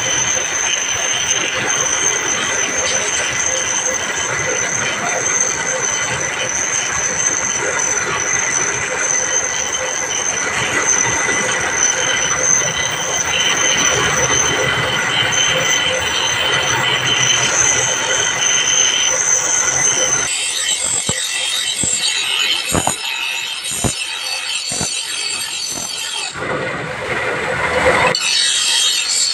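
Steel dagger blank held against a spinning grinding wheel, giving a steady, high-pitched grinding screech as it throws sparks. About two-thirds of the way through, the grinding lightens and a few knocks are heard as the piece is shifted on the wheel, then it bites hard again near the end.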